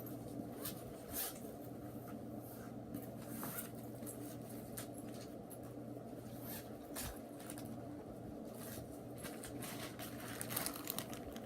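Room tone: a steady low electrical hum with faint, scattered small clicks and taps.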